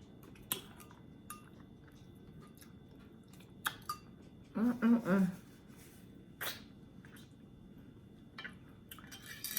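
A person's soft mouth and eating noises: scattered short clicks and smacks, with a short two-part hum about five seconds in.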